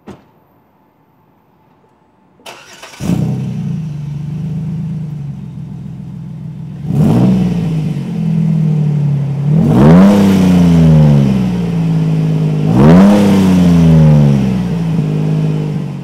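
2007 Jeep Wrangler JK's 3.8-litre V6 running through an aFe 2.5-inch stainless steel Hi-Tuck cat-back exhaust: it starts up about three seconds in and idles steadily, then is revved three times, each rev rising and dropping back to idle.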